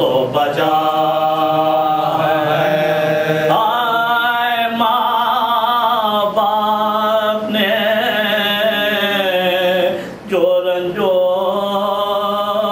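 A man's solo voice reciting an Urdu salaam, a devotional elegy, as a sung chant. He holds long, wavering notes, with a short breath break about ten seconds in.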